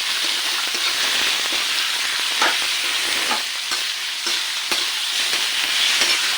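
Thin pork strips sizzling in hot oil with garlic and onions while being stirred in the pan, with a few sharp knocks of the stirring against the pan.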